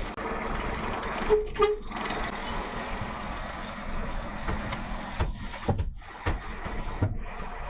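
HGV lorry driving, heard from inside the cab: a steady engine and road rumble with a few short knocks and rattles.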